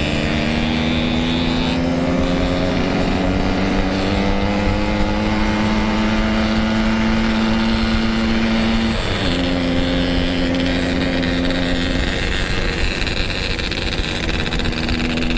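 Yamaha RX-King's two-stroke single-cylinder engine running while riding, its pitch climbing slowly, then dropping at a gear change about nine seconds in and holding steady after.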